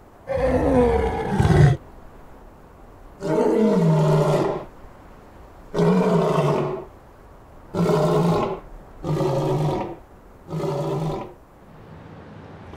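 Male African lion roaring: six roars in a bout, the first two long and loudest, the later ones shorter and quieter.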